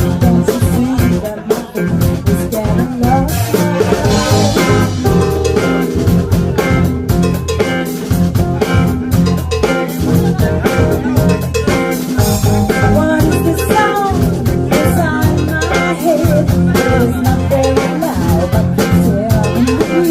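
Music with drums, other instruments and some singing, a steady beat throughout.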